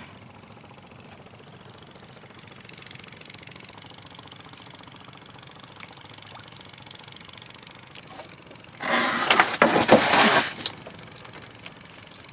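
Water splashing and thrashing at the surface from a hooked animal being worked at the end of a fishing line: a loud, choppy burst of about two seconds beginning about nine seconds in. Before it there is only a faint, steady background.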